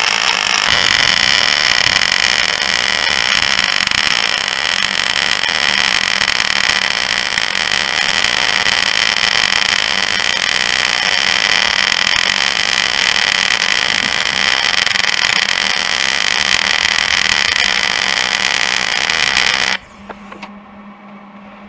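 Wire-feed welder arc running a long continuous bead, welding a steel wear rod onto a snowmobile ski, with a steady crackle. The arc cuts off suddenly near the end, leaving only a low steady hum.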